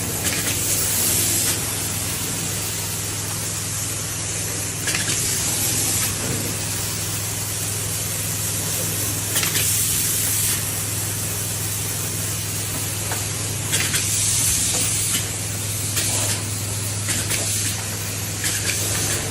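Steady hissing spray over a constant low machine hum, the hiss surging louder several times.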